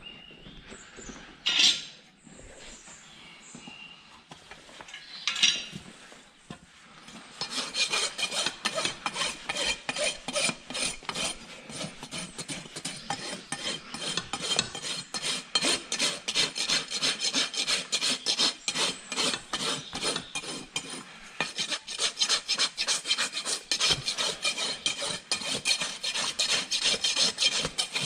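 Farrier's rasp filing a horse's hoof: two short sharp scrapes in the first few seconds, then steady, rapid back-and-forth rasping strokes from about seven seconds in.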